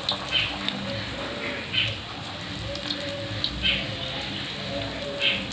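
Batter-coated okra pieces deep-frying in hot mustard oil in a steel kadhai: a steady sizzle with irregular louder crackles.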